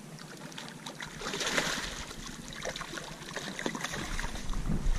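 Water splashing and sloshing at the surface as a hooked black bass moves in the shallows at the bank, loudest about one and a half seconds in. A low rumble joins near the end.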